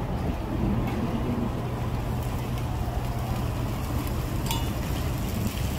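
Steady low rumble of outdoor street noise, with a low hum held through most of it.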